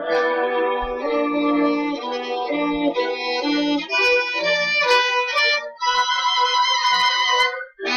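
Violin playing a line of long held notes, then shorter, separated notes from about four seconds in, with a brief break near the end.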